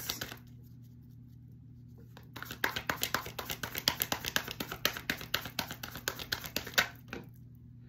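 Tarot cards being shuffled by hand: a rapid run of card flicks starts about two seconds in and stops near the end, with one last click after it.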